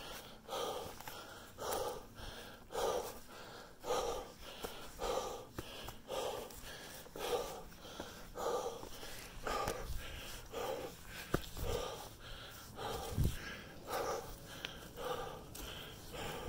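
Heavy breathing of a hiker climbing a steep rocky trail: hard, rhythmic panting, a strong breath about once a second with softer ones in between. A single low thump comes late on.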